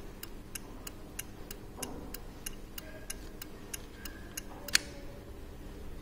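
Automotive turn-signal flasher relay ticking steadily, about three clicks a second, as the signal lamps flash. One louder click comes about three-quarters of the way through.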